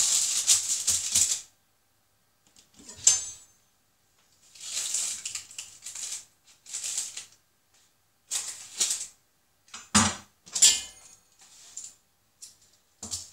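Baking paper crinkling and a knife cutting through a pizza on a wooden chopping board: short bursts of rustling and scraping with a few sharp knocks, the loudest about ten seconds in.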